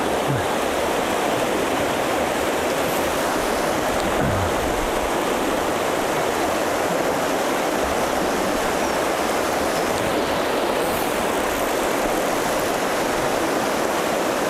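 Fast river current rushing over shallow rapids, a steady, unbroken rush of water.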